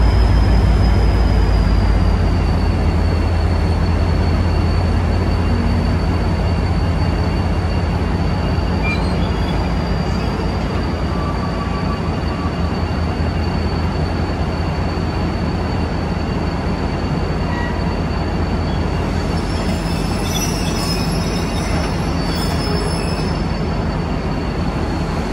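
V/Line A-class and N-class diesel-electric locomotives under power, hauling a heritage passenger train out of a station. A deep engine drone is loudest at first and eases slowly, while the carriages roll by with a steady high wheel squeal and a few sharper squeaks near the end.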